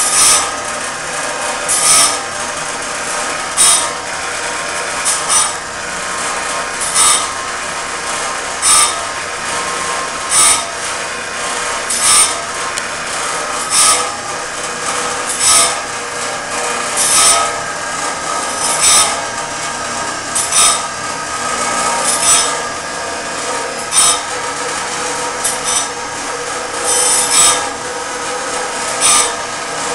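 Automatic band saw sharpener and setter running on a sawmill band blade: a steady motor hum with a sharp grinding rasp repeating evenly about every second and three-quarters, one for each tooth ground.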